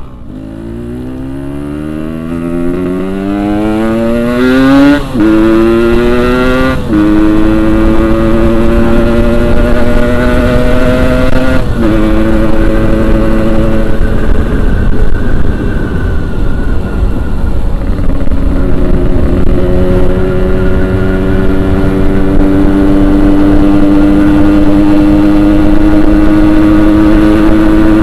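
Yamaha RX-King 135 two-stroke single-cylinder motorcycle engine accelerating hard from a standstill. Its pitch climbs through each gear and drops at the shifts, about 5, 7 and 12 seconds in, then it holds a steady high cruising speed.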